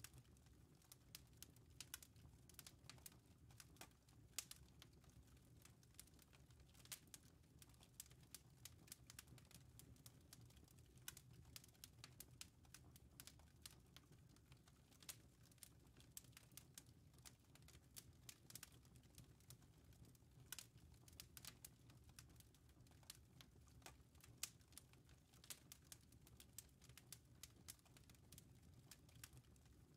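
Near silence: a faint low hum with many scattered, irregular faint clicks and crackles.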